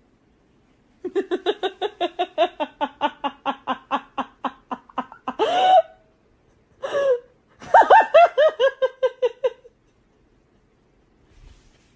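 Laughing: a long run of quick 'ha-ha' pulses falling in pitch. Then two short higher cries and a second, higher-pitched burst of laughing pulses that stops about two seconds before the end.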